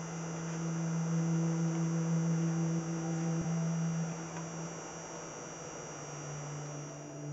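Low, sustained droning music tone with a few quieter held notes above it, its lowest pitch dropping slightly about five seconds in.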